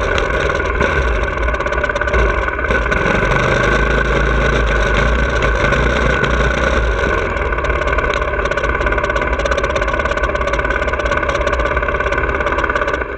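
2017 Honda CRF450R's single-cylinder four-stroke engine running steadily at low revs while the bike is ridden slowly, heard from on the bike.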